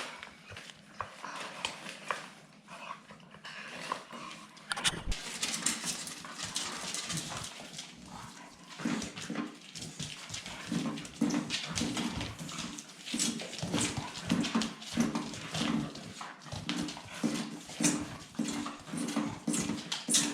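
Staffordshire bull terrier puppies whimpering and giving small barks amid scrabbling, clicking noises. From about nine seconds in, short, repeated, lower-pitched puppy sounds come thick and fast.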